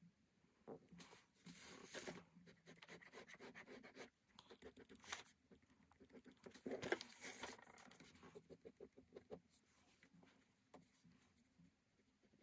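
Ballpoint pen scratching faintly on sketchbook paper in quick, repeated shading strokes. There are a few louder rustles in the middle as the sketchbook is turned on the desk.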